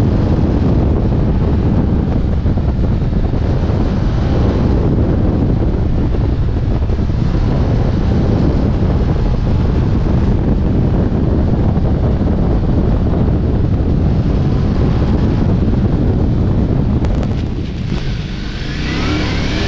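Ducati Multistrada V4 S running at road speed, its V4 engine heard under heavy wind noise on the microphone. Near the end the sound drops away briefly as the rider eases off, then the engine pitch rises again as the bike accelerates.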